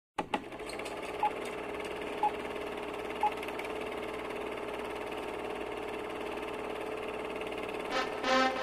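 Old-film intro sound effect: a steady film-projector whir and rattle, with three short countdown beeps a second apart. Music starts near the end.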